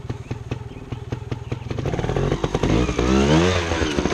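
Trials motorcycle engine idling, then revved hard about two seconds in as the bike climbs onto a rock, its pitch rising and then falling away near the end.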